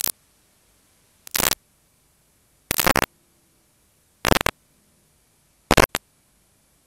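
Bursts of static hiss from a blank stretch of VHS videotape: five short bursts about a second and a half apart, with near silence between them.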